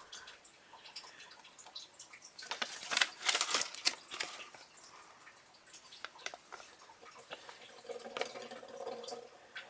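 Handling noise from a paper instruction leaflet: rustling and small clicks, densest about two and a half to four seconds in, with a faint hum near the end.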